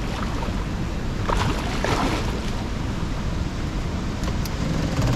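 Turbulent river water rushing and churning in the outflow below a dam that is releasing water, with wind buffeting the microphone; a few louder splashy sounds about one and a half to two seconds in.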